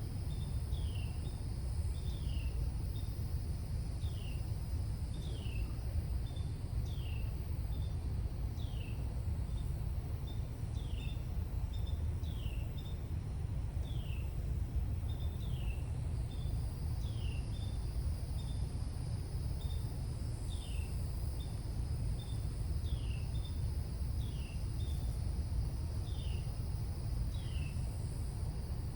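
Outdoor ambience of calling insects: a steady high drone, and a short falling chirp repeating about once a second, over a steady low rumble.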